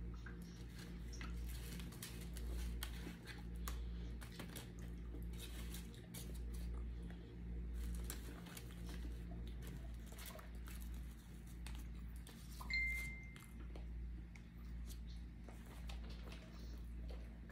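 Eating at a table: scattered small clicks and clinks of cutlery on dishes, over a steady low hum that swells and fades about every two seconds. A short high tone sounds once about two-thirds of the way through.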